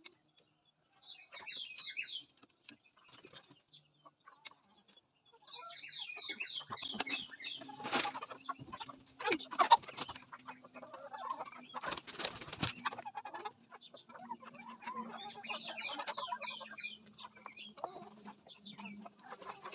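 Kienyeji chickens clucking and calling, with repeated runs of quick high cheeping notes. Several loud knocks or scrapes come midway.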